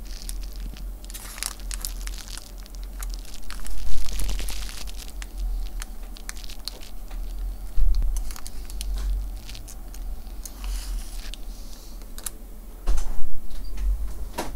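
Crinkling and rustling of small plastic bags and packaging being handled, with scattered clicks and taps, over a steady low electrical hum.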